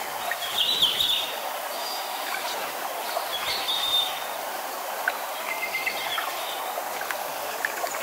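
Steady rush of a small waterfall spilling into a pool, with birds chirping briefly a few times over it: about a second in, near four seconds and around six seconds.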